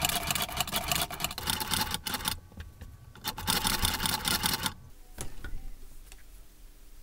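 Chinese shoe-patcher leather sewing machine stitching through two layers of leather. The mechanism makes a rapid clatter of clicks in two runs with a short pause between, thinning out to a few ticks about five seconds in.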